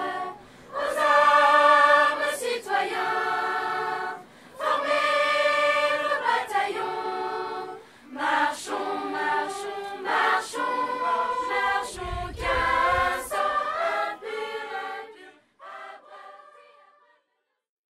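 Children's choir singing in sustained phrases with short breaks between them, the last phrases trailing off near the end.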